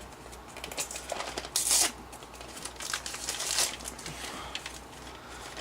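A pocketknife's packaging being torn and crinkled open by hand: irregular rustling and crackling with a louder rip about one and a half seconds in.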